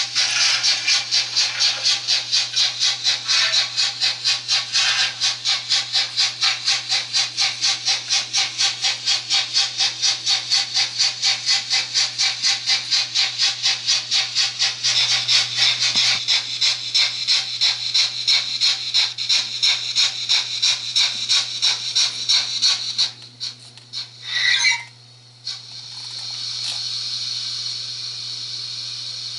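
Digital sound of a Märklin model steam locomotive: steam-engine chuffing, a steady run of hissing beats about three a second. Near the end the beats stop, a short squeal sounds, and then a steady hiss of escaping steam follows.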